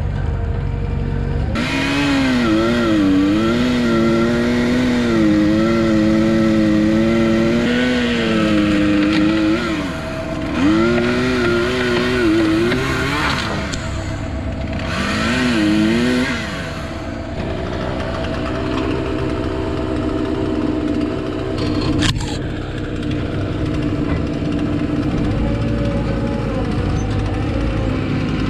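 Two-stroke chainsaw cutting through a felled tree trunk, running at high revs with the pitch sagging and recovering as the chain bites into the wood. It eases off a few times. For the last ten seconds or so a lower, steadier engine sound remains, with one sharp click about 22 seconds in.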